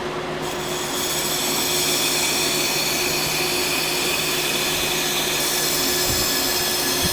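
Electric power tool running steadily, with a constant hum.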